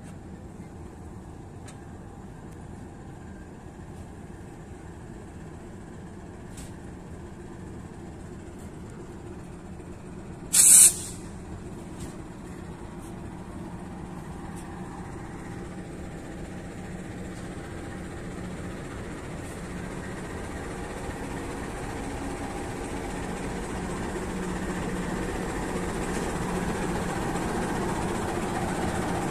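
KAI CC206 diesel-electric locomotive running as it shunts slowly toward the platform, its engine growing steadily louder as it approaches. About ten seconds in there is a brief loud hiss of air.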